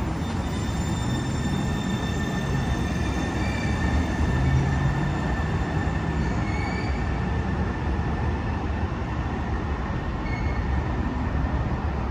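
Sound Transit Link light rail train pulling out of the station and running away along the track: a steady rumble of wheels and motors with a thin high whine over it that fades after about nine seconds.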